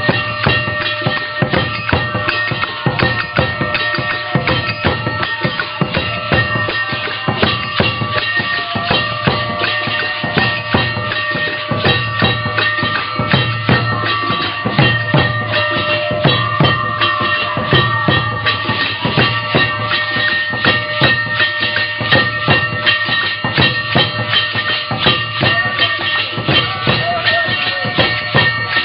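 Loud percussion-led devotional music: drums and rapid, dense strikes of metal percussion over steady ringing tones.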